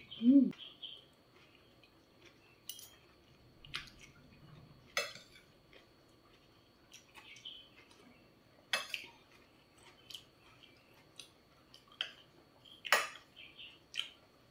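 Metal fork and spoon clinking and scraping against a ceramic plate during a meal: scattered sharp clinks every second or few, with soft small sounds between. A brief vocal sound just after the start.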